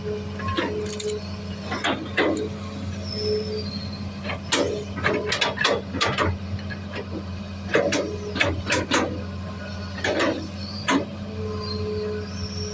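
Long-reach Hitachi hydraulic excavator at work: its engine keeps up a steady low drone while the bucket and arm give a series of sharp metallic clanks and knocks, bunched most thickly in the middle. A few thin, held whining tones sound over the top.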